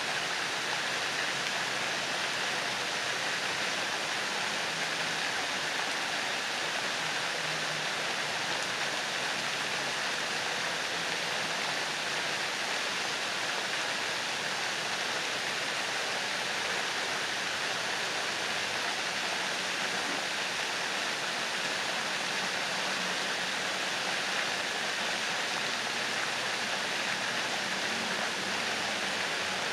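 Ornamental pond fountains: several jets of water falling back and splashing into the pond, a steady, unbroken rush of spray.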